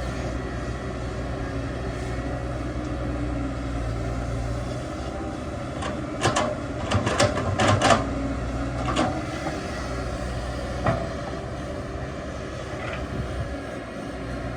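Excavator diesel engine running steadily, with a quick cluster of sharp metal clanks about six seconds in and single knocks a little later.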